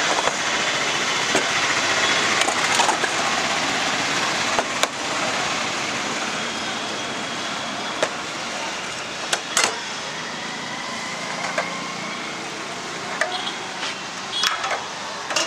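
Busy street ambience: a steady traffic hum with faint background voices, broken by scattered short clinks and knocks as steel bowls and spice jars are handled on a steel counter.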